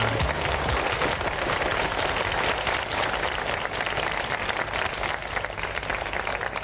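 Audience applauding at the end of a song, the clapping slowly fading; the song's last low note dies away in the first second.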